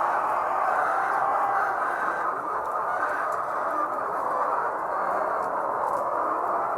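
A large flock of layer hens clucking together in a steady, dense din.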